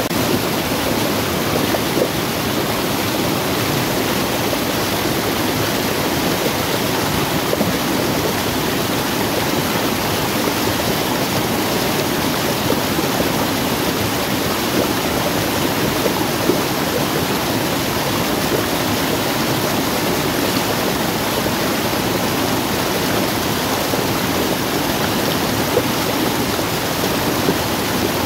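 Muddy rainwater rushing steadily down a small eroded cascade, splashing over rocks and tree roots: runoff from heavy rain.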